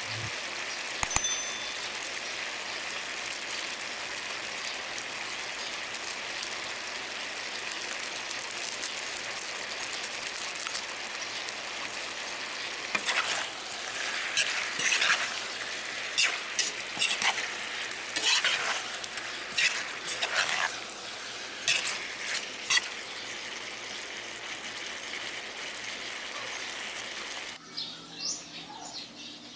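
Cubes of pork sizzling steadily in a hot wok. From about halfway through, a metal spoon stirs them with a run of scrapes and clinks against the pan. Near the end the sizzle cuts off and birds chirp faintly.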